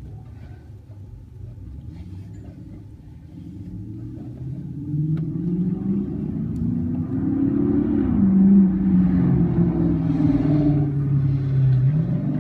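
An engine running with a low rumble that grows louder from about four seconds in, its pitch sliding up and down as it changes speed.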